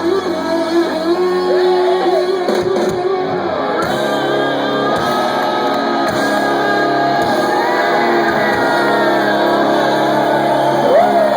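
Live rock band playing loud in a large hall, with shouted singing and held, bending notes over the band.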